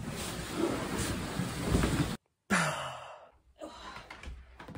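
Handling noise as a small table is shifted about, then, after a short break, a woman's breathy sigh that falls in pitch.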